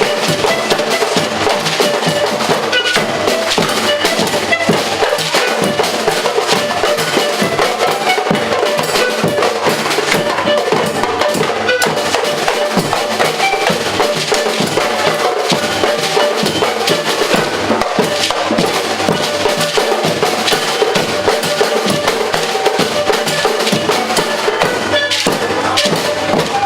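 A batucada-style drum group playing live: many drums and percussion instruments keep up a dense, steady rhythm without a break.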